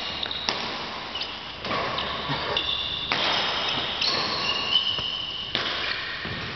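Badminton rally: sharp racket strikes on the shuttlecock a second or two apart, with short high squeaks of court shoes on the synthetic floor, ringing in a large hall.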